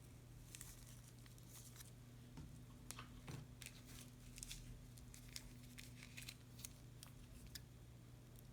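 Faint crinkling and clicking of plastic piping bags and small slime ingredients being handled, as scattered quick ticks that cluster about three to five seconds in. A low steady hum sits underneath.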